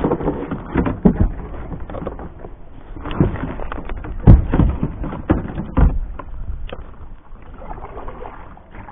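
Plastic kayak being launched and paddled: irregular knocks and thumps of hull and paddle, the loudest about four and six seconds in.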